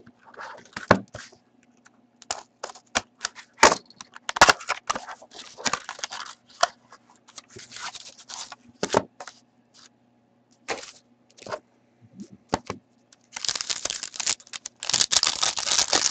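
Small cardboard hockey card box (Upper Deck Trilogy) being opened and handled, with scattered sharp cracks and snaps of the cardboard. Near the end a foil card pack is torn open: a few seconds of loud, dense crinkling and tearing.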